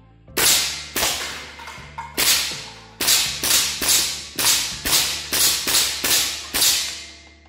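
Hatsan Invader semi-automatic PCP air rifle in 5.5 mm being fired rapidly: about a dozen sharp shots in quick succession at uneven intervals, some under half a second apart. Each crack rings on in the echo of a large metal-clad hall.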